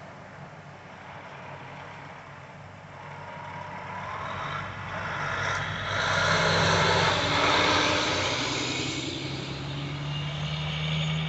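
Road traffic passing close by on asphalt: tyre noise and engines swell to a loud pass about six to eight seconds in, over a steady low engine drone. The sound cuts off sharply at the end.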